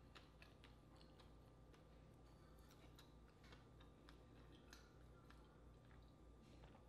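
Near silence: a low steady hum with faint, scattered small clicks as an insulated metal water bottle is handled and drunk from.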